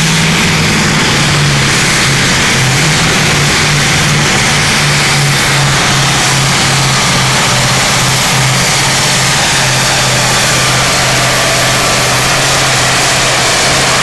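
Massey Ferguson pulling tractor's diesel engine running hard under load as it drags the weight-transfer sled, its injection pump turned up. The engine note is steady and sinks slightly in pitch as the pull goes on.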